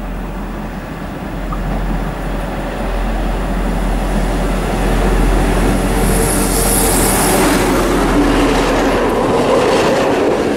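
SNCF Fret BB 69400-class diesel locomotive (no. 69447) passing close under power. Its engine drone grows louder as it nears and stays loud as it goes by, together with the noise of its wheels on the rails. A brief hiss about six seconds in.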